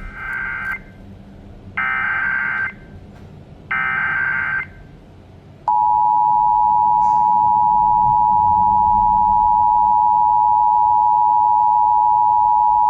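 Emergency Alert System test signal: three short bursts of SAME header data tones, about a second apart, then about six seconds in the steady two-tone EAS attention signal (853 and 960 Hz) starts and holds. It announces a Required Monthly Test.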